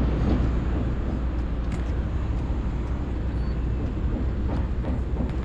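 Steady low rumble of outdoor background noise, with a few faint clicks as the camera is handled.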